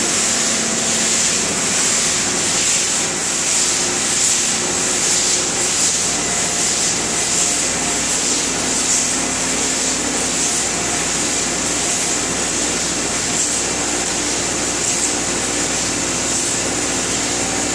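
Windshield wipers sweeping back and forth over a frost-glazed windshield while heated washer fluid sprays, the blades rubbing across the ice in repeated strokes. Underneath is a steady, loud rushing hiss with an engine running.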